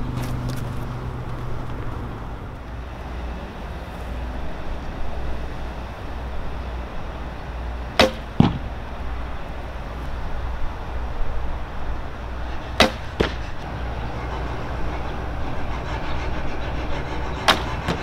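Three shots from a 60-inch, 53-pound Toelke Whistler longbow, each a sharp snap of the string on release. The first two are each followed about half a second later by a second knock. A steady low rumble runs underneath.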